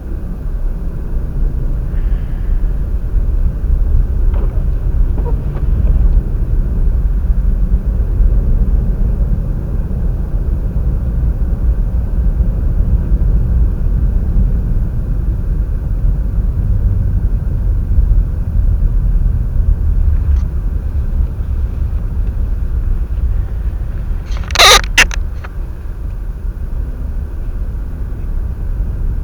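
Strong wind buffeting the microphone across an open field: a loud low rumble that swells and eases unevenly. Late on there is one brief sharp crackle, the loudest sound.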